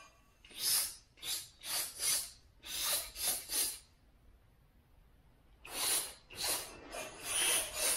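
Aerosol spray can hissing in short bursts, two or three a second, with a pause of about a second and a half in the middle.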